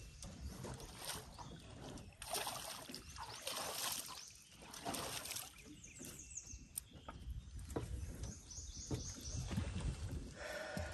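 Irregular rustling and handling noises with water sloshing against a small fishing boat, broken by a few sharp knocks; a quick run of high ticks comes about two-thirds of the way in.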